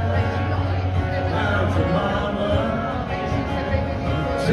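Live solo male singer with an acoustic guitar, singing into a microphone over steady strummed accompaniment, amplified through a PA: a country cover.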